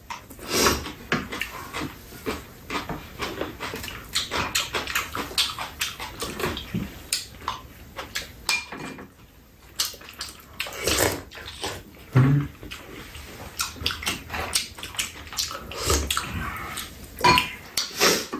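Close-up eating sounds of two people: wet chewing and slurping, with spoons and chopsticks clicking irregularly against bowls and a frying pan.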